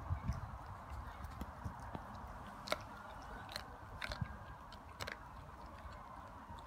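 German shepherd mouthing and biting into a whole raw chicken: wet chewing with a handful of sharp crunching clicks, the loudest four spread through the middle.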